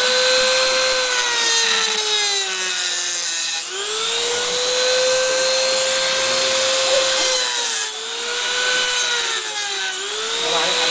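Dremel rotary tool with a cutoff wheel grinding through the rock base of a Micromussa coral: a high motor whine over a gritty grinding hiss. Its pitch sags as the wheel bites under load, most deeply about three seconds in, and springs back each time the pressure eases, with shorter dips near eight and ten seconds.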